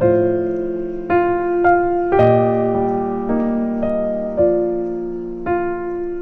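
Background music on piano: slow sustained chords, a new chord struck about once a second and ringing out.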